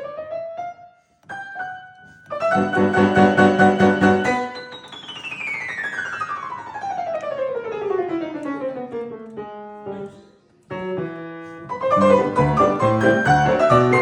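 Piano playing. A fast run climbs and breaks off, then come loud, dense chords and a long run sweeping down the keyboard. After a short pause the playing returns to loud, busy chords near the end.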